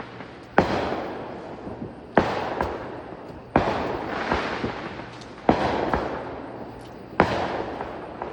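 Fireworks going off: five sharp bangs about every one and a half to two seconds, each followed by a fading crackle, with smaller pops in between.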